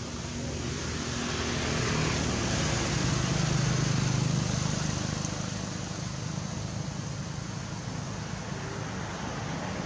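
A motor vehicle passing, its low rumble swelling to loudest about four seconds in and then fading, over a steady background hiss.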